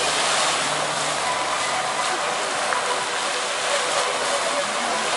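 Fountain jets spraying and splashing down into the basin: a steady rushing, hissing water noise.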